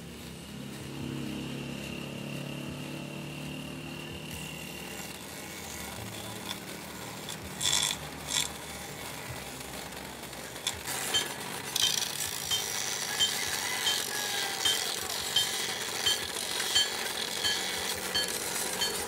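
Small electric bench grinder with a wooden machete handle being shaped against its spinning wheel. A steady motor hum comes first. From past halfway there is a rasping grind in short, regular strokes, about two a second.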